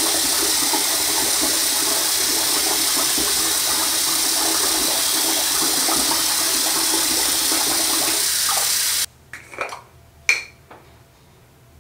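Water running steadily from a bathroom sink tap, cutting off suddenly about nine seconds in. Then a few light clinks of a small jar being handled.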